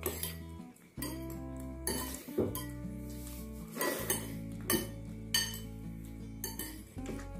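Metal spoons and forks clinking and scraping against ceramic bowls in a few irregular, sharp clinks, over background music with steady held notes.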